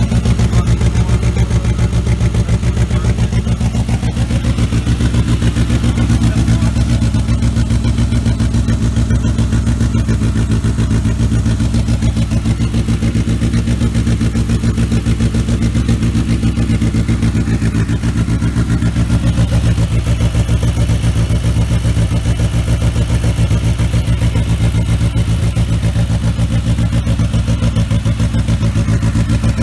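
An engine idling steadily, with an even, rapid pulsing beat.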